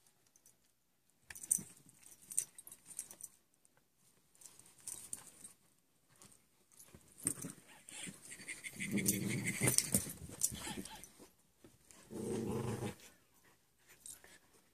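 Dogs play-fighting over a stuffed toy: scuffling and rustling on the couch and carpet, then growling, one long growl from about nine seconds in and a shorter one near the end.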